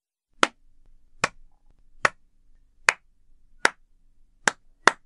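Sharp finger snaps keeping a slow, even beat a little over one a second, coming twice as fast from about four and a half seconds in.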